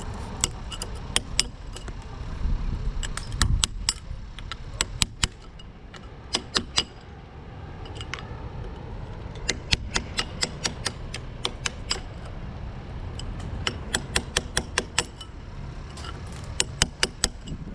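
Irregular sharp metallic clicks and taps, often in quick clusters of two to four, over a low rumble.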